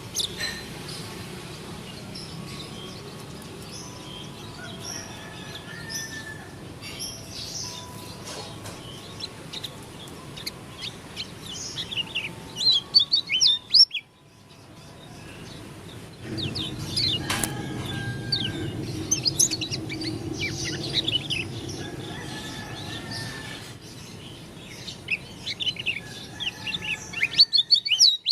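Lombok white-eye (pleci dakun) singing a rapid, twittering song of high chirps. The song comes in louder bursts about halfway through and again near the end, with a short break in between. The song is billed as unusual.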